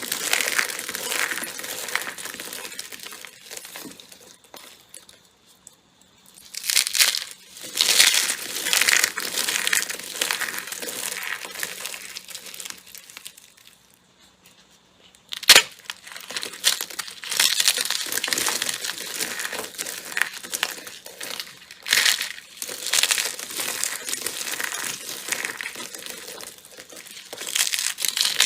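Slime being squeezed and pressed by hand, making crinkling, crackling squish noises in irregular bursts. There are two short lulls, and a single sharp snap comes about halfway through.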